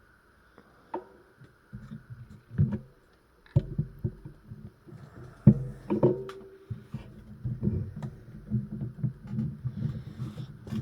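Handling noise from working on an old radio on a workbench: scattered clicks and knocks of hands, tools and parts, with a low, irregular rubbing underneath.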